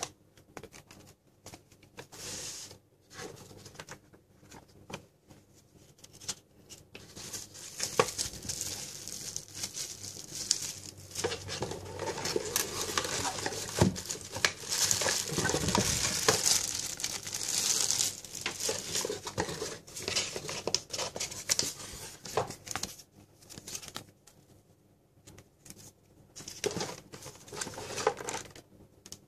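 Cardboard box and packing being handled: cardboard flaps and inserts scraping and knocking, with plastic wrapping crinkling. The rustling is densest and loudest in the middle stretch, with sparser clicks and taps before and after.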